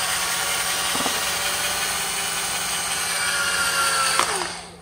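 Ryobi cordless drill running steadily as its bit bores into a headset's plastic ear cup, then stopping near the end.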